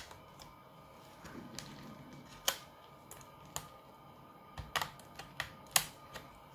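Irregular sharp plastic clicks and key clatter as fingers press the keys and pry at the edge of a Dell Latitude E7240 laptop's keyboard trim, working the plastic clips loose. The loudest clicks come about two and a half seconds in and again near the end.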